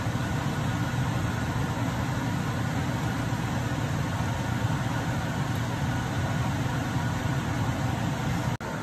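A steady low hum and rumble that cuts out for an instant near the end.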